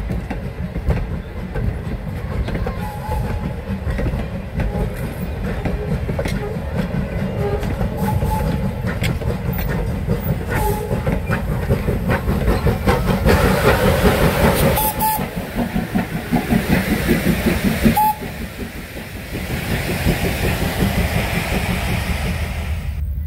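Steam-hauled passenger train rolling past close by, its steel wheels clicking over the rail joints under a steady rumble. A little over halfway through, the small steam tank engine at the rear goes by and the sound is louder for a few seconds. Then it drops away sharply, leaving a fainter hiss.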